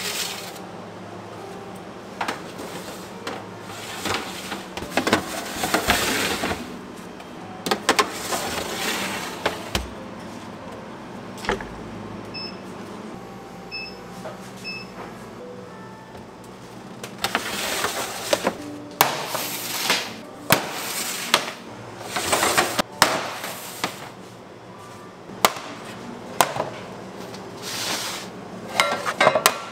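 Bakery kitchen work: irregular scraping and rustling with sharp clicks and knocks of trays and utensils being handled, and three short electronic beeps about halfway through.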